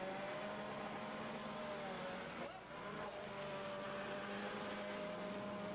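Engines of several demolition derby cars running and revving at once, their pitches drifting slightly as the cars manoeuvre and ram each other.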